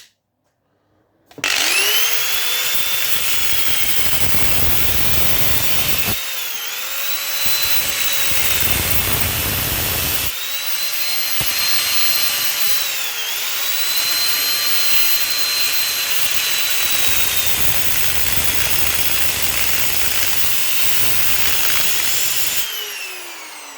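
Electric power tool switched on and whining up to speed, then cutting copper pipe to take the brass fittings off, its pitch sagging a few times as it bites in. It is switched off near the end and winds down.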